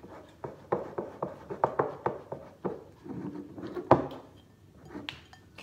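A spoon knocking and scraping against mixing bowls as glue slime mixture is stirred, giving irregular clicks and knocks, the loudest about four seconds in.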